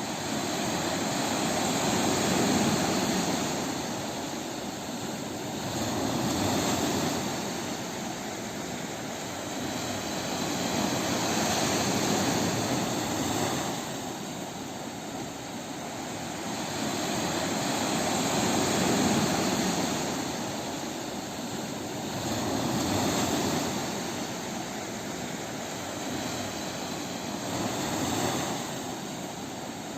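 Ocean surf on a beach: a continuous wash of waves that swells and ebbs in about six slow surges.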